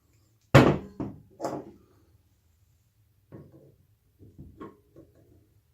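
Hand tools and metal parts being handled on a work surface: a sharp knock about half a second in and two lighter ones just after, then a run of faint clicks and rattles, as circlip pliers are put to work on a retaining ring.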